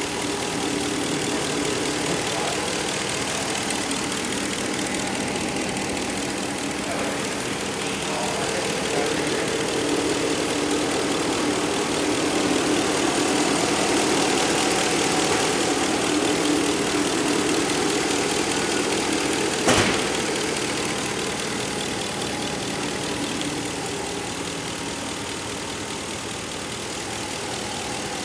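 2019 Ram 5.7-litre Hemi V8 (EZH) idling steadily, heard up close in the engine bay, with a single sharp click about two-thirds of the way through.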